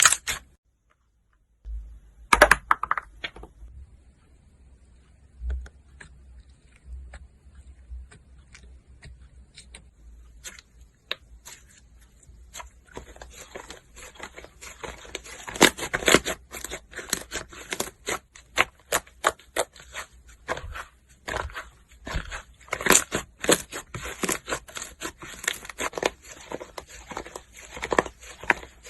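Slime being worked by hand, giving off crisp crackling and popping clicks, sparse at first and then dense and busy from about halfway through.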